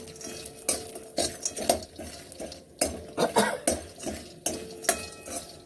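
Metal spoon scraping and knocking against a kadai while stirring vadi, garlic and dried red chillies frying in a little oil: irregular strokes, a few a second.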